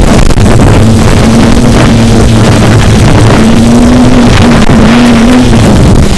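F450 quadcopter's brushless motors and propellers buzzing loudly in flight, their pitch wavering up and down as they hold against strong wind, with rough wind noise on the microphone.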